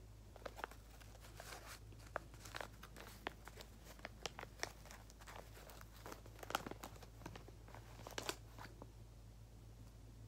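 Hands crinkling and rustling crafting materials in irregular bursts of sharp crackles, loudest about six and a half seconds in and again around eight seconds.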